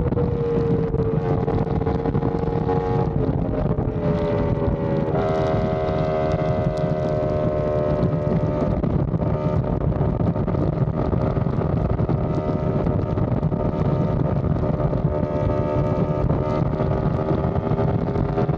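Yamaha R1M sport motorcycle's crossplane inline-four, through an SC Project exhaust, running at fairly steady cruising revs at highway speed, with heavy wind rush on the microphone. The engine note rises and fills out about five seconds in, then holds.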